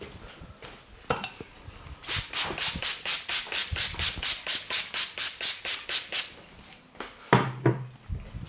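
Hands striking a person's back in massage: a quick, even run of slaps, about seven a second for some four seconds, with a single slap before it and two after it.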